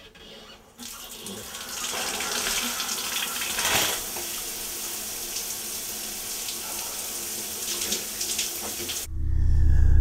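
Shower running: water spraying steadily from a handheld shower head, starting about a second in. Near the end it cuts off suddenly and a loud, low droning hum takes over.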